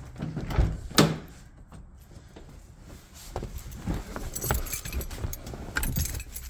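Handling noise with a loud knock about a second in, then a bunch of keys jangling and clinking.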